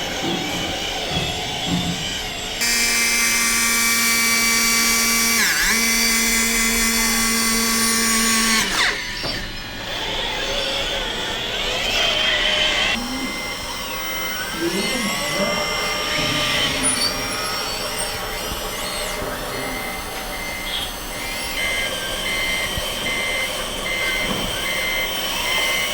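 Radio-controlled construction models at work: a steady motor whine for about six seconds, then mixed mechanical working noise, and near the end a reversing beeper sounding in regular pulses, about two a second.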